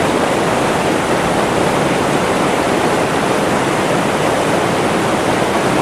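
Mountain river rushing over boulders in whitewater, a loud steady rush of water with no breaks.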